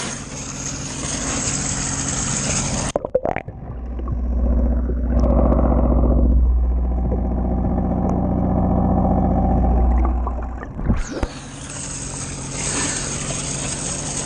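Splashing and water sloshing at the surface. About three seconds in, the sound turns muffled and heavy in the low end as the microphone goes underwater, then comes back to splashing near the end. A steady low drone runs underneath throughout.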